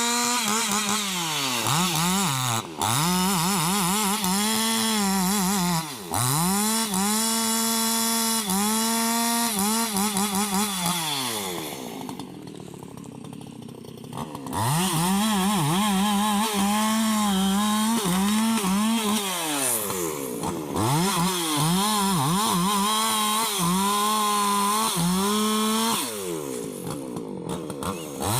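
Husqvarna 288 XP two-stroke chainsaw running at high revs, its pitch sagging and recovering over and over as it works through rubberwood. About twelve seconds in it drops to a quieter low-revving stretch for a couple of seconds, then climbs back up; it eases off again near the end.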